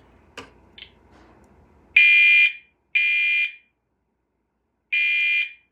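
Potter fire alarm horn sounding its default tone, one that sounds just like a Gentex Commander 3. About two seconds in it starts loud blasts of about half a second, a second apart: two blasts, a short pause, then two more.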